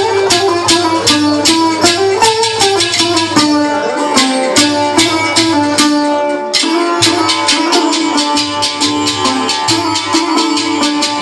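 Traditional Punjabi folk music: clay pot drums (ghara) struck in a quick, steady rhythm of about four strokes a second, with a pitched melody played over them.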